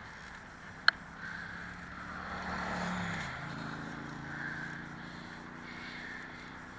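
A motor vehicle passing on the road alongside, its noise swelling and fading with the engine note dropping in pitch as it goes by. Underneath is the steady rolling and wind noise of the bicycle, and there is a single sharp click about a second in.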